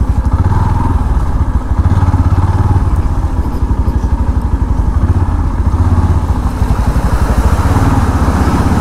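Yamaha FZ-X motorcycle's single-cylinder engine running steadily while riding, its firing pulses heard as an even low throb.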